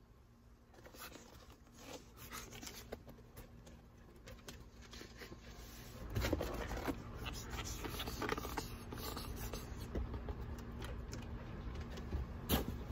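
A dog mouthing and chewing a spiky rubber ball, with scattered small clicks, rubs and scrapes. From about six seconds in a low rumble comes in and the rubbing gets busier.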